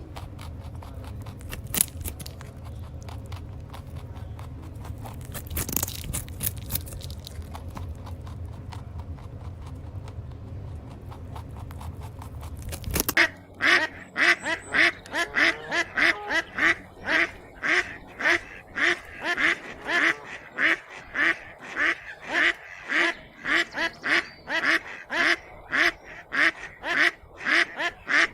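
Steady low rumbling noise with scattered clicks, then an abrupt switch about halfway through to a duck quacking rapidly and repeatedly, about two quacks a second.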